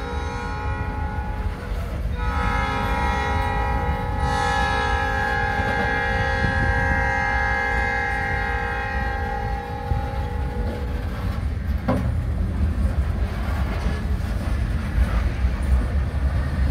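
Locomotive air horn sounding a several-note chord in three blasts, the last a long one that stops about eleven seconds in, over the steady low rumble of a freight train's hopper cars rolling past. After the horn the wheels' rumble and rail clatter go on, with one sharp clank.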